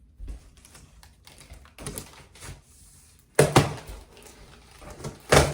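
Cardboard boxes and packaging being handled while unpacking couch pieces: a run of knocks, scrapes and rustles, the loudest a quick pair of knocks about three and a half seconds in and another near the end.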